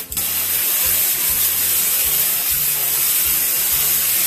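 Newly installed handheld stainless-steel bidet sprayer (jet spray) being test-run, shooting a jet of water into a bathtub with a steady hiss.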